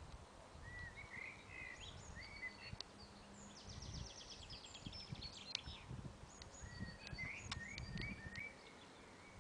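Small songbirds singing: short rising chirps, a fast trill about three and a half seconds in, and high whistled notes, over a faint low rumble.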